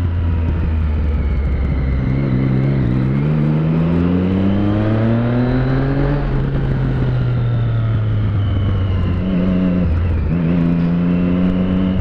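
Motorcycle engine heard from the rider's seat, accelerating hard with its pitch climbing for about four seconds. The throttle then eases off and the pitch falls, settling to a steadier, lower note near the end.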